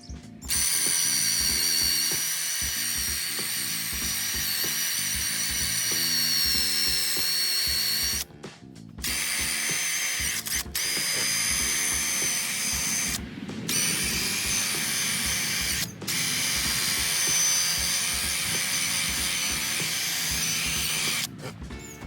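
A high-speed handheld power tool running with a high whine in long stretches, stopping briefly about four times, while cleaning old gasket glue and gunk off an LS engine block. Background music with a steady beat plays underneath.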